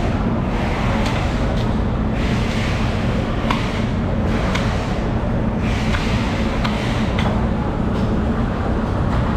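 Long tuna knife cutting through a bluefin tuna's head, with repeated sharp clicks and knocks as the blade works against bone, over a steady low machine hum like an idling engine.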